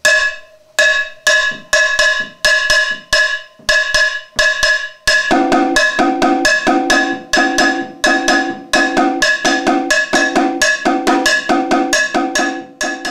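A campana (hand bell) struck with a stick in a steady repeating Arará bell pattern. About five seconds in, a conga (tumbadora) played with a stick and the bare hand joins it with denser, deeper strokes: the first drum part of Arará rhythm 1.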